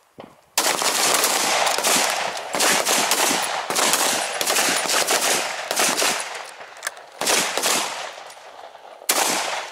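Rapid, overlapping rifle gunfire from several rifles on a firing line. It starts suddenly about half a second in and forms a dense volley for about six seconds, then thins to a few scattered shots, with one more loud burst near the end.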